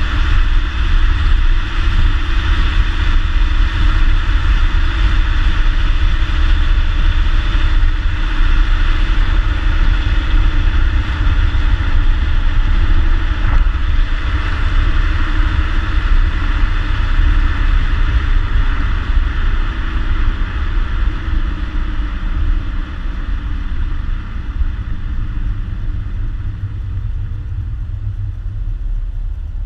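A 2014 Ford Mustang's 3.7-litre V6 on its stock exhaust while driving: a steady low rumble without sharp revs, growing somewhat quieter over the last several seconds.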